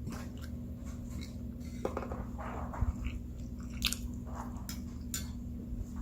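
A person chewing a mouthful of food close to the microphone, with scattered soft crunches and sharp wet mouth clicks.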